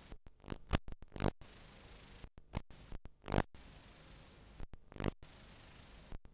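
Analog tape noise from a blank stretch of videotape: a steady hiss broken by irregular loud crackling bursts, several times a second at the busiest, with brief dropouts to silence.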